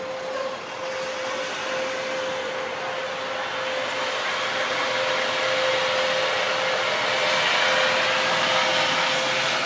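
A loud, hissing drone with a steady hum running through it, swelling over several seconds and easing slightly near the end: one of the unexplained 'strange sounds from the sky'.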